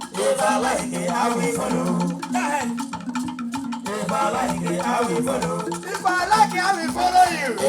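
Traditional Niger Delta festival music: voices singing over shaken rattles and steadily repeating pitched drum or instrument notes, in a continuous dance rhythm.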